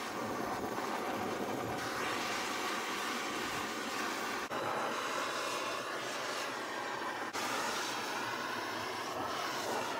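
Propane turbo torch, fed from a 20-pound tank, burning with a steady rushing hiss as its flame scorches the surface of a wet poplar carving. It breaks off briefly twice.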